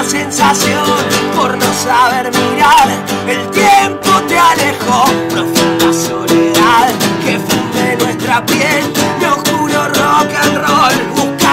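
Acoustic band music: strummed acoustic guitars with a wavering melody line over them.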